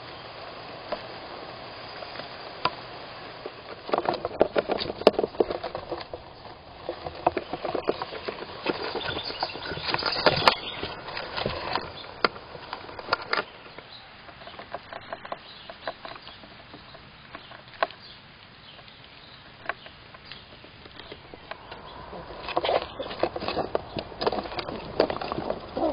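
Young squirrel scratching and scrabbling with its claws on the wooden floor and walls of a nestbox, heard close up inside the box. It comes in bursts of quick scratches and knocks over a faint steady hiss: about four seconds in, again around eight to thirteen seconds, and from about twenty-two seconds on, with a quieter spell in between.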